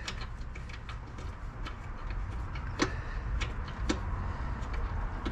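Irregular light clicks and taps from hands working on parts deep in a car's engine bay, a few sharper ones about three and four seconds in, over a steady low hum.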